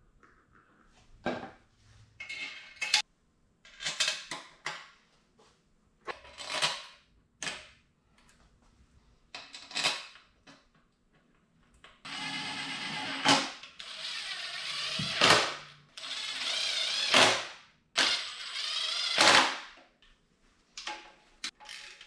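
Cordless drill-driver running bolts into an oil pan on an engine, in four bursts of about a second and a half each in the second half, each ending in a sharp peak. Before that, scattered short clicks and knocks of bolts and tools being handled.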